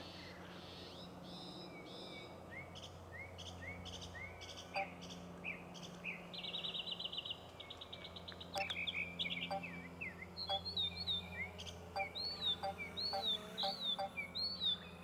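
Bird calling repeatedly: a run of short rising chirps, a quick trill about halfway, then repeated sharp falling notes that grow louder near the end.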